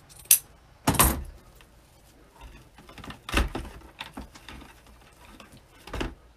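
Ribbon crafting sounds at a work table: scissors snipping wired ribbon and ribbon rustling, with four sharp clicks and knocks as tools or spools are handled and set down. The loudest comes about a second in.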